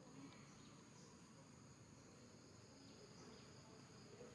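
Faint, steady high-pitched insect chorus, crickets or similar, over low background hiss.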